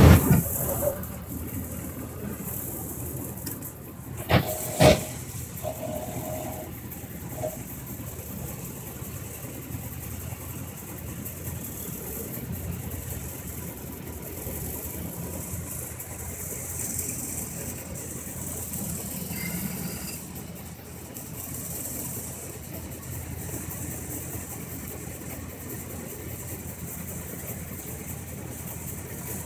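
Willys Jeep engine running steadily under a hissing, noisy phone recording. There is a sharp bang right at the start and two thumps about four to five seconds in.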